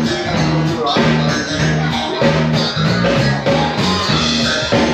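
Live band playing rock music: guitar over a steady beat from a drum kit.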